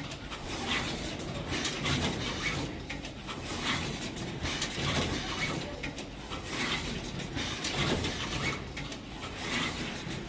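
Automatic wire-harness connector insertion machine at work: irregular mechanical clicks and knocks over a steady noise.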